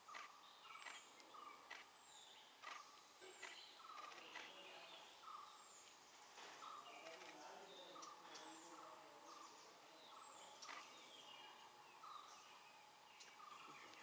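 Faint forest birdsong from several small birds: short chirps repeated every second or so and high whistled notes that fall in pitch, with a few scattered clicks.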